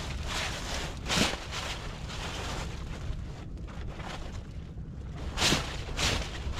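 Wind buffeting the microphone over open sea water, with a steady low rumble and a few louder rushes of splashing about a second in and twice near the end, as a fishing net is hauled in.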